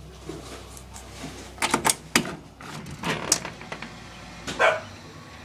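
A dog barking in short, sharp barks: a quick burst about a second and a half in, then a few more spaced out toward the end.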